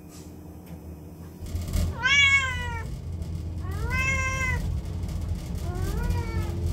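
Orange-and-white domestic cat meowing three times, drawn-out calls that rise and fall, the last one fainter. Under them a wall-mounted gas boiler runs with a steady low hum that comes in about a second and a half in.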